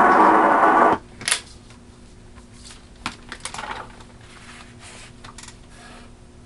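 BC-1306 WW-II field radio receiver playing shortwave audio, cut off abruptly about a second in as its front-panel knob is turned. A sharp click and then a few light clicks and knocks of handling follow, over a faint steady hum.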